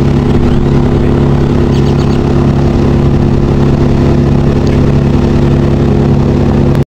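An engine running steadily at constant speed, from the machinery at a tree-cutting job. It cuts off suddenly near the end.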